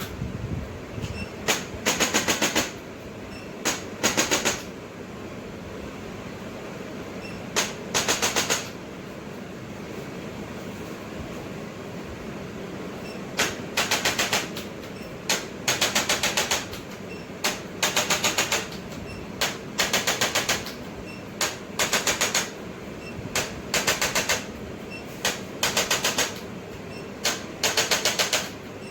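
Handheld percussion treatment instrument firing in bursts of very rapid clicks, a short burst followed by a longer one of about half a second, repeating every two seconds or so, with a pause of about four seconds a third of the way in.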